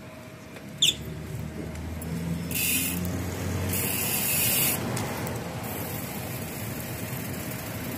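Cars driving past on the road: a low rumble with tyre hiss that swells to its loudest around the middle and then eases off. A brief high squeak about a second in.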